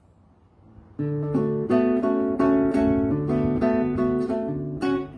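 Acoustic guitar playing a song's introduction, starting about a second in with picked chords over a regular bass line.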